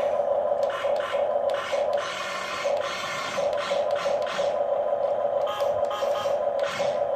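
Small electric gear motors of a Huina 1550 RC excavator whirring with a plastic grinding rattle, starting and stopping every half second to a second as its functions are worked.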